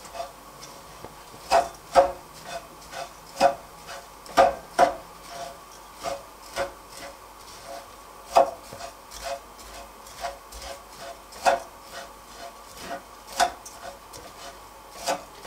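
Wooden spoon stirring dry, toasted kadayıf shreds and ground walnuts in a nonstick pan: a continuous dry scraping and rustling, with irregular knocks of the spoon against the pan, about two a second, each ringing briefly.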